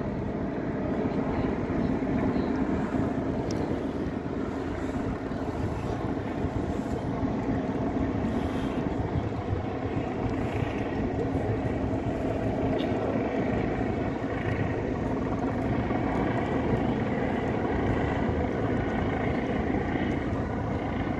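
Steady engine drone: a constant low hum over rumble and hiss, with no breaks or sudden events.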